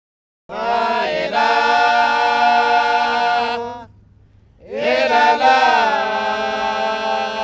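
Unaccompanied Islamic devotional chant, sung in long drawn-out notes. It comes in two phrases with a short break about halfway through.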